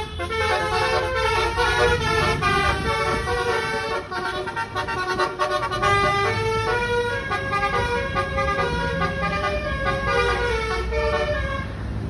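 Bus 'basuri' telolet horn, a multi-trumpet air horn, playing a quick tune of stepped notes, several changing each second, over a low engine and traffic rumble. The tune stops abruptly near the end.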